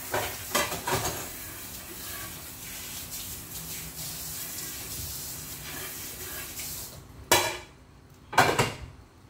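Cooking pots and utensils being washed in a sink: clattering near the start over a steady hiss that cuts off abruptly about seven seconds in, then two loud clanks as pieces are set down.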